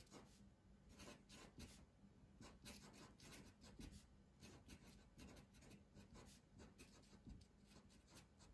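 Sharpie permanent marker writing on paper: faint, quick, short strokes of the felt tip, one after another, as words are lettered.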